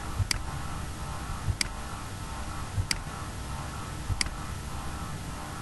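Four sharp computer mouse clicks, about a second and a quarter apart, over a faint low room hum.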